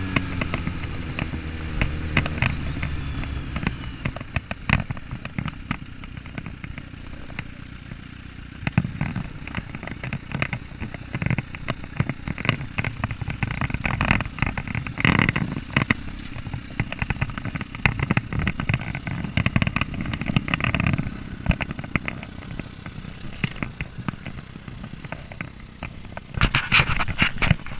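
Kawasaki Z750 inline-four engine note falling as the bike slows, then mostly wind buffeting and crackling on a helmet-mounted camera's microphone with scattered knocks. Near the end, scraping and rubbing as the camera is handled.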